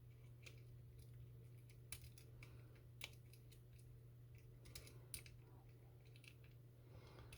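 Faint, irregular clicks and scrapes of a short hook pick working the pins of a Bovii dimple lockout-tagout padlock during single pin picking, a few clicks standing out louder, over a steady low hum.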